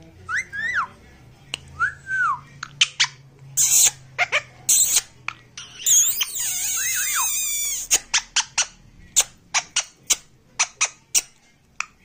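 Male Indian ringneck parakeet calling. It gives a few whistled notes that rise and fall, then short sharp chirps, then a harsh screech of about two seconds from halfway through, and ends with a run of short sharp chirps, about three a second.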